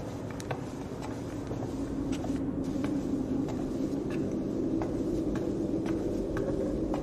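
Low rumbling drone of dramatic sound design that slowly grows louder, with scattered light taps of footsteps on a hard floor.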